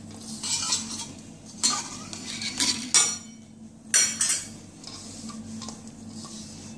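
A hand mixing dry, crumbly flour in a stainless steel bowl. Fingers rub and scrape the flour against the metal in irregular strokes, with several sharper scrapes and knocks on the bowl.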